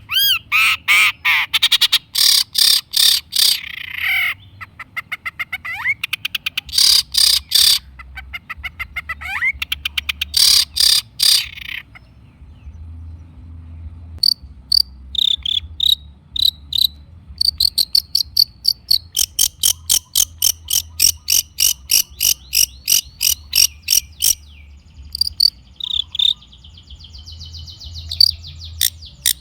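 Long-tailed shrike (cendet) singing: rapid runs of short, scratchy repeated notes, with a quieter break partway through before the runs resume.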